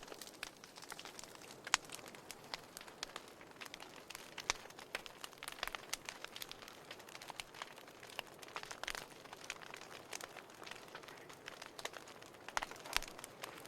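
Wood fire in a fireplace crackling, with irregular sharp pops over a soft hiss. A few louder pops come about two seconds in, near the middle and near the end.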